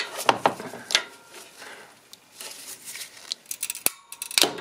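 Socket wrench with a 13 mm socket working the nut on an alternator's positive battery-cable terminal, giving a few scattered sharp metal clicks and clinks.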